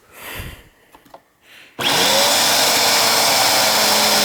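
Eureka Airspeed One bagless cyclonic upright vacuum cleaner switched on about two seconds in: its motor spins up with a brief rising whine, then runs loud and steady. Before it there are only faint handling sounds.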